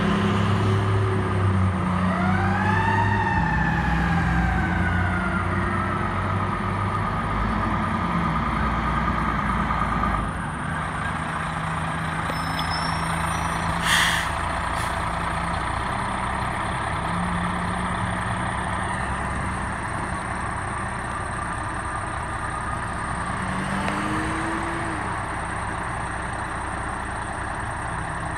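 Fire engine's Federal Q2B mechanical siren rising and then winding down over a few seconds, over the steady running of the truck's diesel engine. A short air-brake hiss about halfway through.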